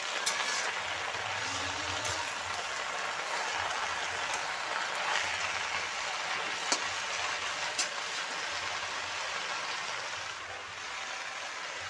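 Chech bhaji greens sizzling in a hot kadhai as they are turned with a metal spatula, a steady hiss with a few sharp clicks of the spatula against the pan.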